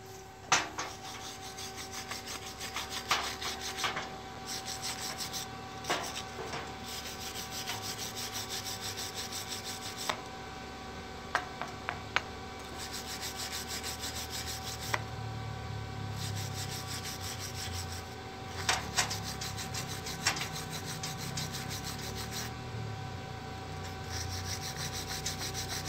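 Slag being brushed and scraped off fresh 7018 stick-weld tacks on steel: fast rasping strokes, with a few sharp knocks, over a steady hum.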